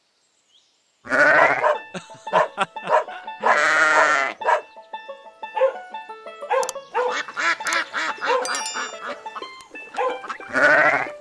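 Sheep bleating three times, about a second in, again around three and a half seconds, and once more near the end, each a wavering baa. Light background music plays under them from about two seconds in.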